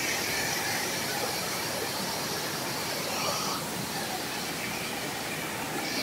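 Stream water running over rocks in a steady, even hiss.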